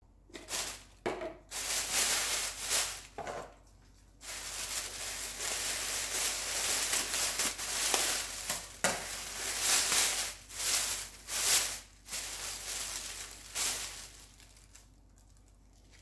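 Thin plastic bag crinkling and rustling in irregular bursts as a bundle of green onions is unwrapped and pulled out of it, going quiet near the end.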